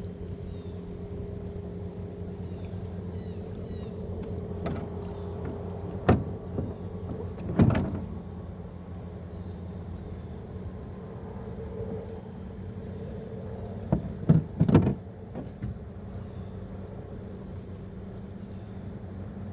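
Steady hum of a small boat's electric trolling motor, with several sharp knocks, the loudest about two-fifths of the way through and twice close together about three-quarters through.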